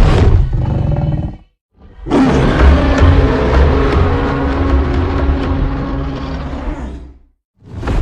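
King Kong creature roar sound effects: the tail of one roar ends about a second and a half in, and after a short pause a long, deep roar with a heavy low rumble lasts about five seconds before cutting off.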